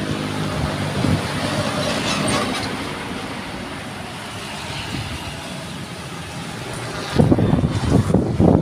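Road traffic: a truck engine running as the truck drives past, its sound spreading into tyre and road noise and then fading. About seven seconds in, a loud, uneven low rumble starts suddenly.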